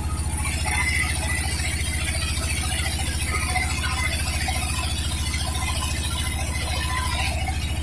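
Sawmill engine running steadily with an even low pulse, while the saw cuts gmelina wood, a higher rasping noise from about half a second in until near the end.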